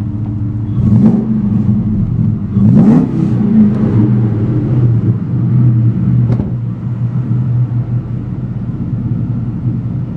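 Mustang's 4.6-litre V8 idling through BBK long-tube headers, a gutted catted H-pipe and a Magnaflow Street Series catback, blipped twice: briefly about a second in, then harder around three seconds in, before settling back to a steady idle.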